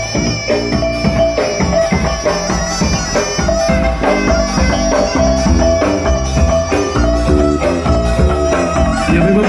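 Traditional folk music: a wind instrument playing a held, wavering melody over a steady percussive beat.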